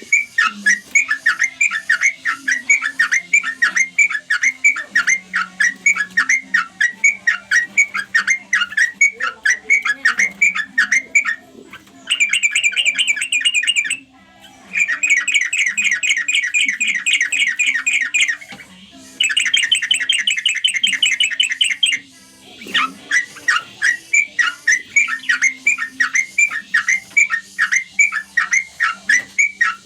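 Yellow-vented bulbul (trucuk) calling: a fast series of sharp repeated chirps, about three to four a second, broken in the middle by three stretches of rapid trilled chatter.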